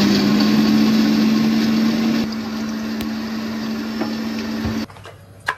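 Electric food chopper's motor running at full speed, blitzing ginger, garlic and green chillies into a dry paste. It gets slightly quieter about two seconds in and cuts off a little before the end, followed by a sharp click.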